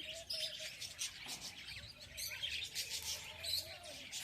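A flock of lovebirds in an aviary chirping continuously, many short high calls overlapping.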